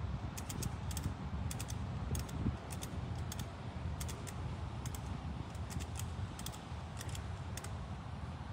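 A series of irregular sharp clicks, many in quick pairs, over a steady low rumble.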